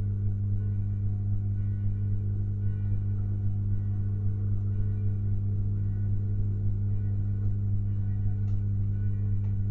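Steady electrical mains hum, a low drone with a stack of overtones that never changes. A few faint clicks come near the end.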